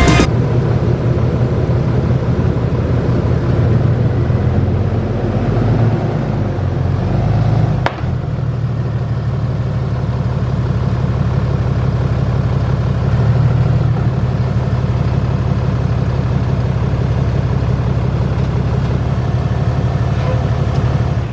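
Pickup truck engine running steadily with a low, even drone, briefly interrupted about eight seconds in.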